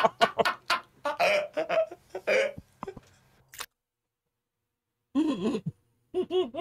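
A man laughing hard, with the rhythmic laughter trailing off in the first second or so. After a quiet gap of about a second and a half, two more short, wavering laughs come near the end.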